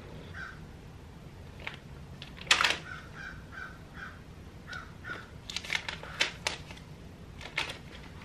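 Quiet handling noises: a paper instruction leaflet rustling as it is unfolded and read, with scattered light clicks and taps. The sharpest rustle comes about two and a half seconds in, and a run of quicker clicks comes later on.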